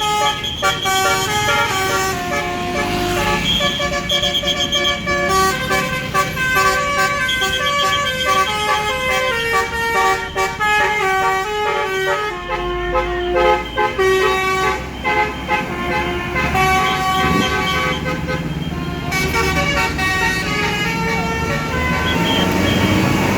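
Bus basuri telolet horn playing a long tune of quick-changing notes over engine and traffic noise; about three-quarters of the way through the tune stops and only the vehicle noise remains.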